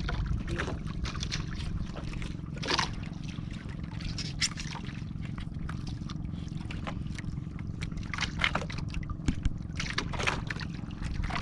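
Seawater splashing and dripping in short irregular splashes as a wet longline is hauled into a small boat, over a steady low hum.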